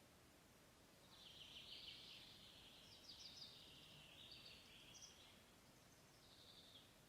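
A songbird singing faintly: a long, fast trilling phrase of high notes about a second in, then a short second phrase near the end.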